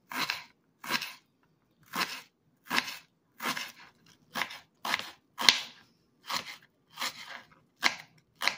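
Kitchen knife slicing a red onion on a wooden cutting board: a crisp crunch through the onion and a tap on the board with each cut, about a dozen even strokes, roughly one every 0.7 s.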